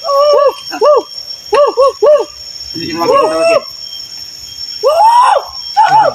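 A person's wordless voice making short hooting syllables, each rising and falling in pitch: a quick run of about four in the first two seconds, then a few longer, more tangled calls. A steady high insect drone runs underneath.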